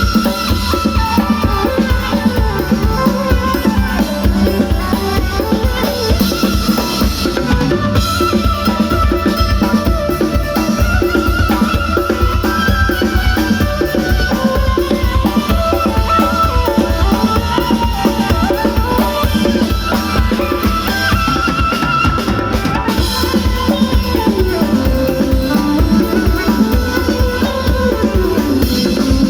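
Live band music: a drum kit keeps a steady, driving beat with bass drum and snare, under a wavering melodic line.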